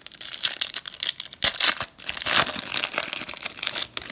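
Foil wrapper of a 2018 Optic football trading card pack crinkling and tearing as hands pull it open, in several clumps of sharp crackles.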